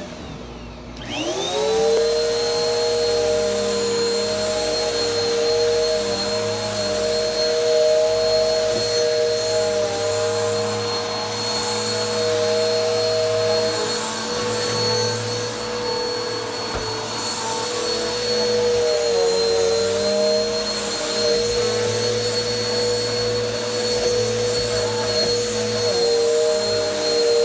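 Bissell PowerForce Helix upright vacuum switched on about a second in, its motor spinning up to a steady high whine. It runs as it is pushed over carpet picking up dirt and carpet-freshener powder, its pitch dipping slightly now and then.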